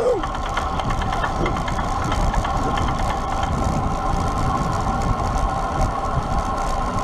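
Riding a bicycle at speed: wind buffets the microphone with a heavy low rumble, and a steady hum runs underneath with scattered light clicks.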